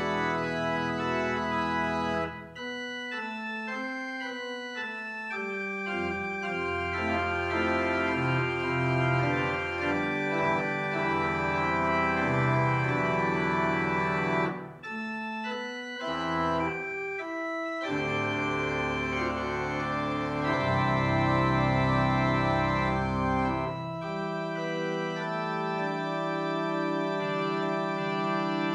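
Church organ playing slow, sustained chords over deep bass notes, with brief breaks between phrases, one about halfway through.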